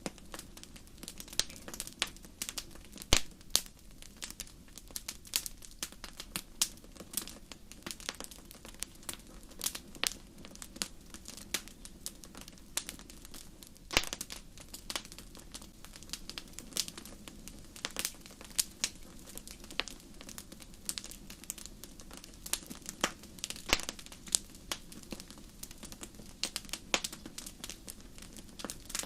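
Wood fire crackling in a fireplace: irregular snaps and pops over a low steady rush of the flames, a few pops louder than the rest, the loudest about three seconds in and another near fourteen seconds.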